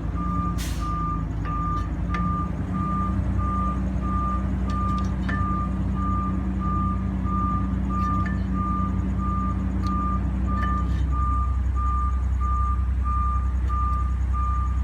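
Garbage truck's reversing alarm sounding a steady high beep about one and a half times a second over the truck's engine running, the engine note dropping about eleven seconds in.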